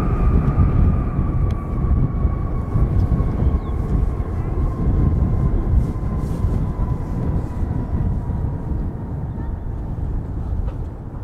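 Jet airliner engines: a heavy low rumble with a high whine that slowly falls in pitch, the loudness easing a little toward the end.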